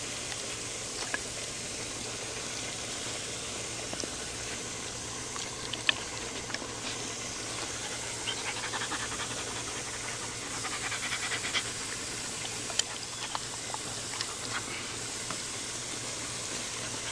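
Solid black German Shepherd Dog panting close to the microphone, heavier in spells around the middle, over a steady background hiss.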